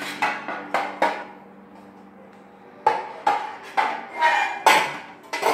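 Metal table parts knocking and clinking, each knock ringing briefly; four quick knocks at the start, a pause, then six more in the second half.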